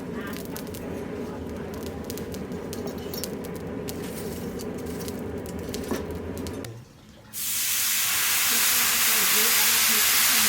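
Low workshop noise with scattered light clicks, then, about seven seconds in, a loud steady hiss starts abruptly and holds.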